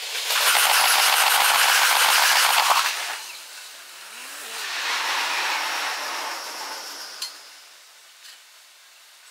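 Trains passing on the line, played back at six times speed. A loud rush with a fast, dense run of wheel clicks over the rail joints lasts about three seconds, then a second, smoother train rush swells and fades away.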